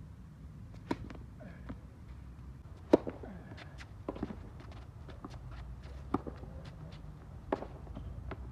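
Tennis ball being struck by rackets and bouncing on a hard court during a serve and rally: a sharp pock every one to two seconds, the loudest about three seconds in, over a steady low rumble.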